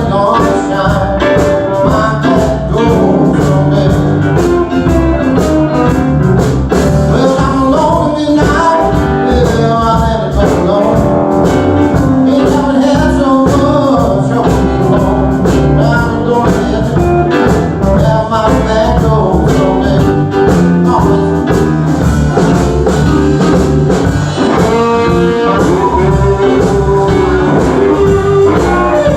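Live band playing a blues song, with electric guitar and a singer.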